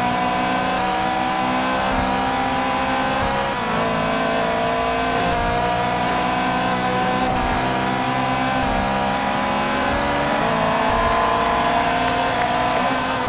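Race-car engine sound, a steady high engine note that climbs slowly in pitch, drops back once about three and a half seconds in, then climbs slowly again.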